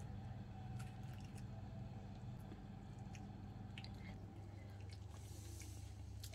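Fingers pulling apart the flesh of a whole roasted sea bass on a plate: faint soft squishing with scattered small clicks, over a steady low hum.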